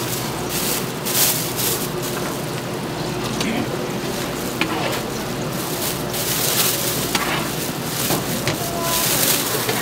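Thin plastic bag crinkling in repeated bursts as chopped sundae and offal are scooped off a wooden cutting board into it with a cleaver.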